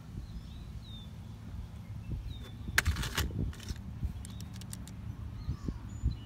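Light clicks of a Casio pocket calculator's keys being pressed, a quick run of them a little after the middle, with a short rustle about three seconds in. Faint bird chirps and a low rumble sit underneath.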